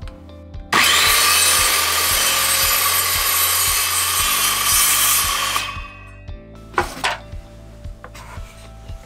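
Circular saw running and cutting a shallow 1 mm-deep groove into the wooden base of a sliding crosscut jig. The saw starts abruptly about a second in, runs loud for about five seconds and dies away near six seconds. Two short knocks follow.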